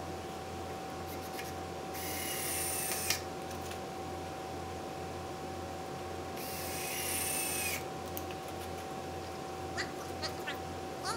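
Cordless drill driving screws into a 2x4 wood wall frame: two runs of about a second each, a high motor whine over the noise of the screw biting into the wood. A few light clicks near the end.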